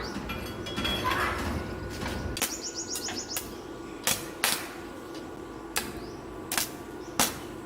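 Scattered sharp knocks or taps, about five in the second half, spaced irregularly. A brief fast ticking rattle comes about two and a half seconds in.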